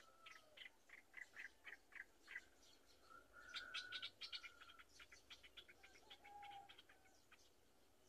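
Birds chirping: quick runs of short, high chirps, thickest around the middle, over a thin steady whistle.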